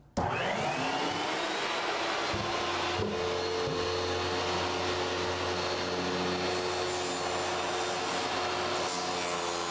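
Table saw switched on, its motor spinning up to speed within about a second and then running steadily as a stopped cut is made along the side of a wooden toolbox. A new tone joins at about three seconds in.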